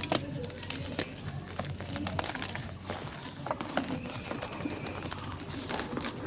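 Reformed gym chalk being crushed by hand, giving irregular crunching and crackling as the pressed blocks break and crumble.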